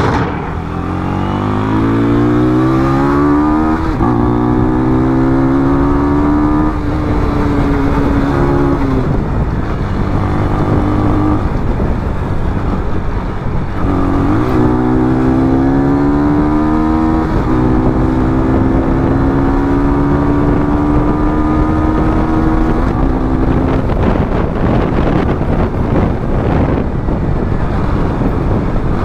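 KTM 250 Duke's single-cylinder engine accelerating up through the gears, its pitch climbing in each gear and dropping back at each shift, then holding steady at cruising speed. It does this twice, and near the end the engine note gives way to a rougher rush of wind and road noise.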